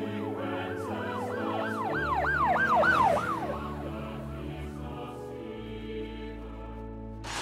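Emergency-vehicle siren yelping up and down about three times a second, growing louder until about three seconds in and then fading away, over sustained background music chords.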